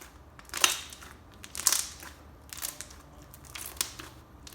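Homemade slime being pressed and popped: about four short airy pops, roughly one a second.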